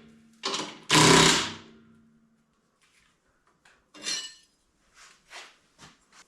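Hand adjustment of a wet saw back to a 90-degree cut: metal clanks and knocks, two loud ones in the first second and a half, then about half a dozen lighter knocks. The saw is not running.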